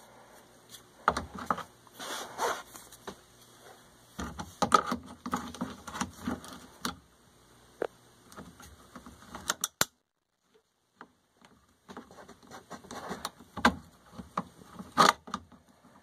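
Irregular clicks, scrapes and small metallic rattles of tongue-and-groove (Channellock) pliers gripping and working a wire spring hose clamp on a washing machine's drain pump hose, stopping for a couple of seconds about ten seconds in.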